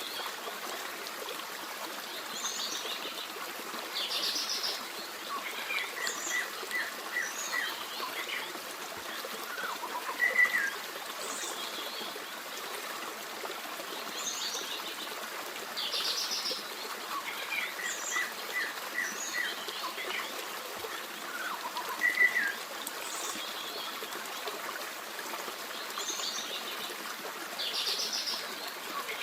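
A forest stream runs steadily under several birds chirping and singing, including short runs of quick repeated notes. The same sequence of calls comes round about every six seconds.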